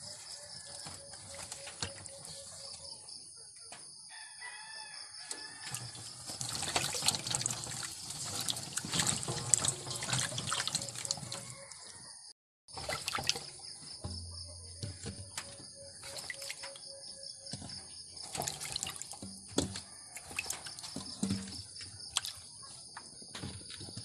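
Water sloshing and splashing as peeled cassava chunks are rinsed by hand in a metal basin, loudest in the middle. After a short break the pieces knock lightly as they are lifted out, over a steady high-pitched whine.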